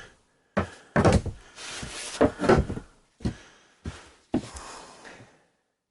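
Wooden knocks and thuds of particle board flooring panels being handled and knocked into place, about six hits in four and a half seconds.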